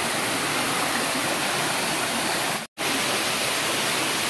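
Small waterfall and stream rushing steadily over boulders into a rock pool, a constant loud rush of water. The sound cuts out for an instant about two and a half seconds in, then resumes.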